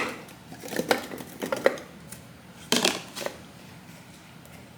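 Pieces of frozen banana dropped into a blender jar: a run of clunks and knocks over the first three seconds or so, then they stop.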